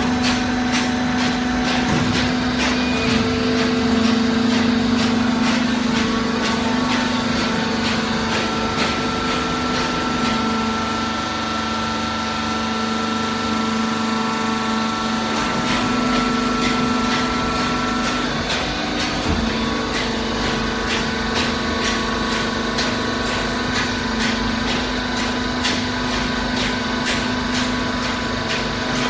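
Hydraulic cardboard baler running: a steady motor and pump hum, with frequent light clicks and knocks from the machine.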